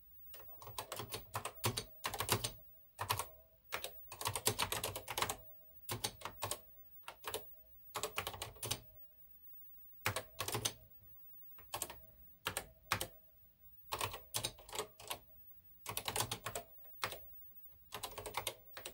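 Keys of the NASCOM 1 computer's keyboard typed in quick runs of clicks with short pauses between them, as a BASIC program is keyed in line by line.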